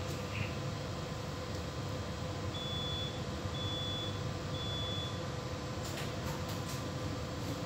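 Three short high electronic beeps, about one a second, over a steady low hum, followed by a few faint clicks near the end.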